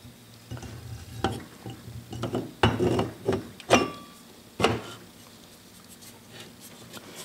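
Metal clinks and knocks, about half a dozen, as the rotor of a 1.5 hp electric motor is slid into the stator frame and the end bell is seated against the housing; one clink rings briefly.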